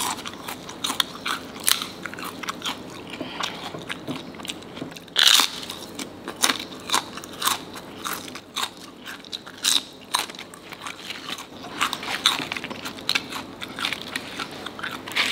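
Close-miked biting and chewing of crisp emping (melinjo-nut crackers): a run of sharp crackling crunches, loudest about five seconds in, with steady chewing between them.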